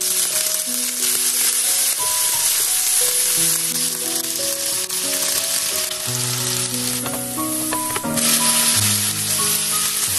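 Cubes of marbled beef sizzling in oil on an electric grill pan, being turned with tongs. A light background music track with a simple melody plays over the frying.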